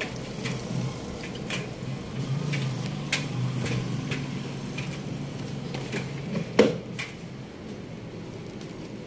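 Clicks and knocks of a plastic detergent jug and a front-load washer's plastic dispenser drawer being handled, with one louder knock about two-thirds of the way through, over a faint steady low hum.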